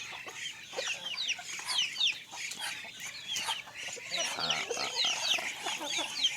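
A flock of free-range village chickens calling at feeding: many overlapping short, high, falling chirps, with a lower cluck about four seconds in.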